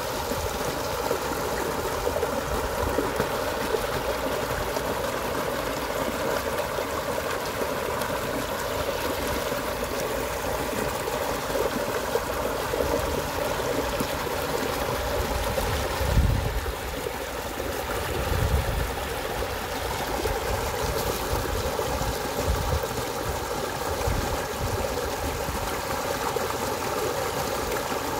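Small shallow stream running fast over a low cascade: a steady rush and splash of water. A couple of low thumps come about halfway through.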